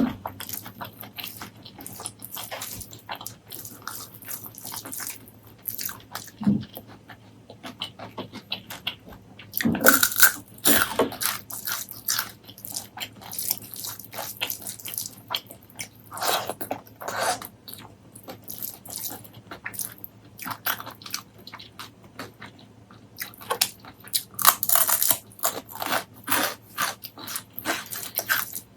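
Close-miked eating: mouth sounds of chewing, with crisp crunching bites and wet smacking, louder in a few clusters of bites.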